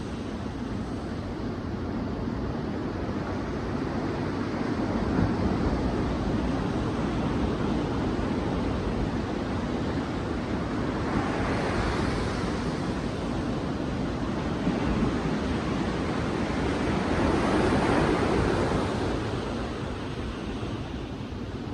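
Sea waves breaking on a beach. The surf rises and falls in a steady wash, with a wave swelling louder about every six seconds.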